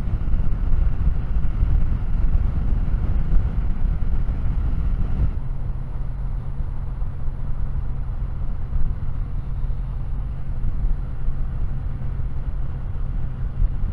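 Kawasaki W800's air-cooled parallel-twin engine running under way, with wind and road noise. About five seconds in, the rushing noise drops away and a steadier low engine note remains.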